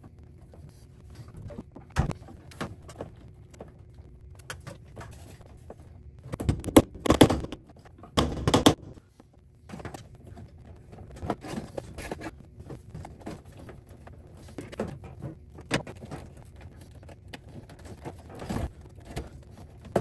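Scattered clicks, knocks and rustling of hands working a cable through a connector into a metal electrical box. There are two louder clusters of knocks about seven and eight seconds in.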